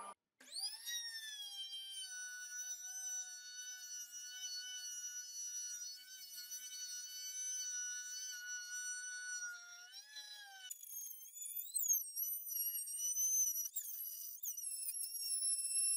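Handheld electric trim router spinning up with a rising whine, then running at a steady high-pitched whine while its bit routes a circular groove in a wooden board. About eleven seconds in the whine jumps higher and dips briefly in pitch a few times as the bit is loaded.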